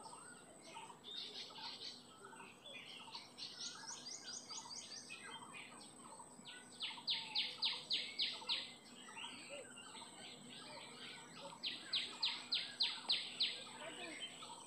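Birds calling: one bird gives three runs of rapid repeated high notes, about five a second, each run lasting a second or two, while other birds chirp softly in the background.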